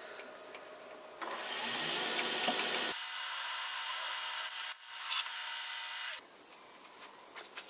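A 6 mm drill bit boring a hole into a block of wood. It cuts for about five seconds, with a brief break near the end, then stops.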